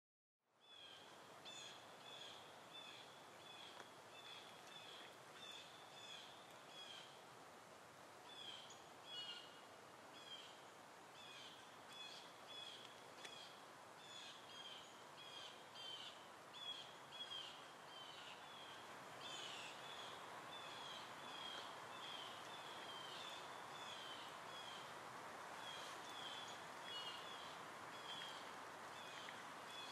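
Faint bird chirping: short high notes repeated about twice a second, over a soft steady background hiss that grows a little louder after about 19 seconds.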